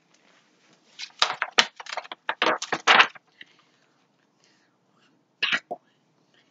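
Handling noise from a hardcover picture book and hands: a dense run of sharp rustles and taps lasting about two seconds, then two more short taps near the end.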